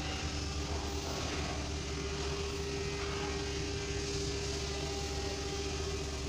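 Steady mechanical drone with a constant hum, unchanged throughout.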